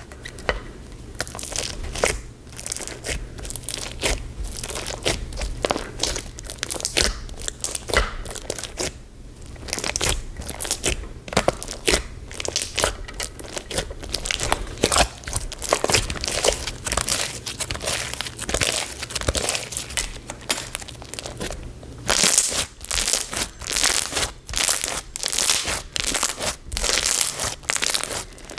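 Crunchy white-glue slime with silica and mini block beads being squished and pressed by hand, giving dense, irregular crackling and popping. It gets louder and denser over the last several seconds.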